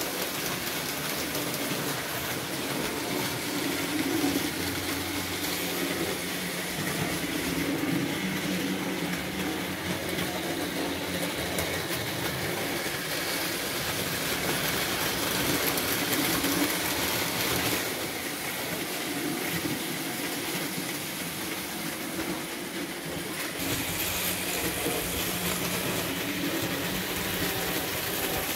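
Several vintage Märklin model trains running at once, a steady mix of small electric motors and wheels rolling over metal track.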